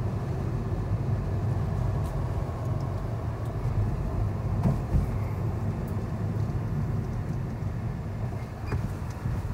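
Steady low rumble of a Lada Vesta Cross driving along a town street, engine and tyres heard from inside the cabin, with a couple of short knocks about halfway through.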